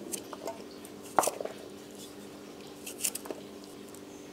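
Crisp cuts of a curved hand blade chopping through fresh colocasia runners: a few short snaps, the loudest about a second in and a small cluster near three seconds.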